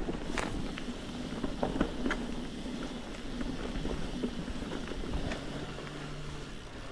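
Canyon Neuron full-suspension mountain bike being ridden along a forest trail: steady tyre noise on the ground with scattered small clicks and rattles, and wind on the microphone.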